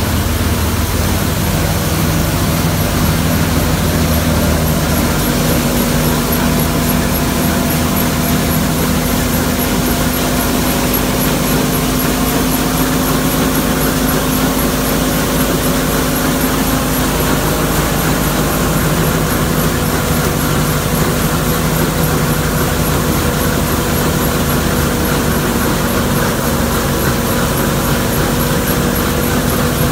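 Multicrop thresher running steadily under load while threshing dry crop stalks: a dense, even machine drone with a steady hum.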